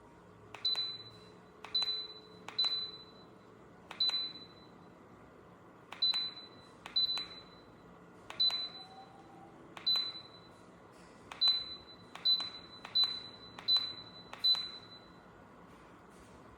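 Dreo electric space heater beeping each time a control button is pressed: about thirteen presses, each a click with a short high beep, mostly a second or so apart and quickening near the end.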